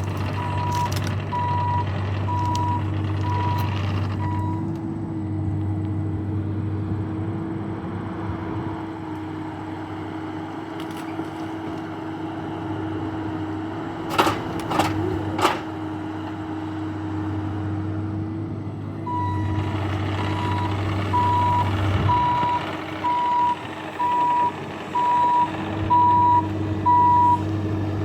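Diesel engine of a working machine running steadily while its backup alarm beeps in a regular series, first at the start and again from about two-thirds of the way through. A few short metallic clanks come in the middle.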